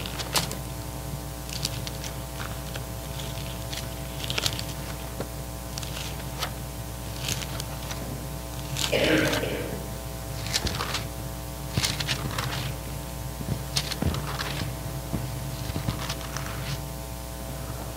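Pages of a Bible being leafed through at a pulpit: scattered soft rustles and light taps of paper over a steady electrical hum from the sound system. A short, louder sound comes about nine seconds in.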